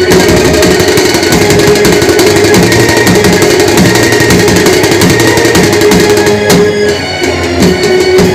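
Indian street brass band playing loud, fast festive music: big bass drums and side drums beating a driving rhythm with cymbal crashes, under a steady held brass note.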